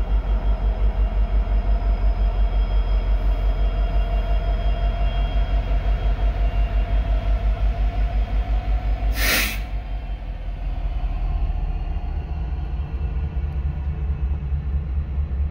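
Diesel locomotive running close by with a low pulsing throb about four times a second. About nine seconds in comes a short, loud hiss of air, after which the throb settles into a steadier rumble.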